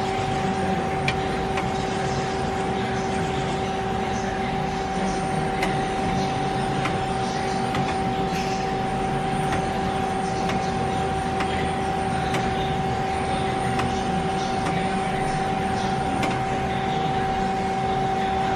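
CNC Swiss-type lathe (Nomura NN32YB2) running under power: a steady whine on two notes over a low hum and machinery noise, with faint ticks now and then.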